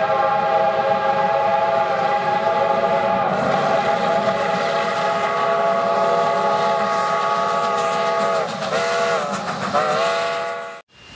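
Steam locomotive whistle of Black River & Western 2-8-0 No. 60: one long held blast, then two short blasts near the end, over a low rumble from the locomotive. The sound cuts off suddenly right at the end.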